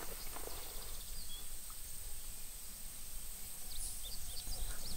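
Quiet ambience with faint, scattered bird chirps over a steady high-pitched tone and a low rumble.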